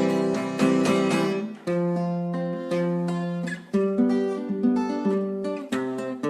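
Acoustic guitar strumming chords with no singing, a new chord about every second.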